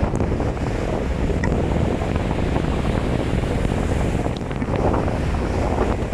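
Strong gusting wind buffeting the microphone with a heavy low rumble, over the wash of a rough sea's surf.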